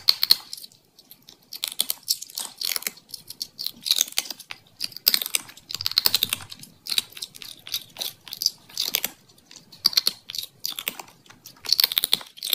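A cat chewing with its mouth open: many short clicking sounds in irregular runs of a few a second.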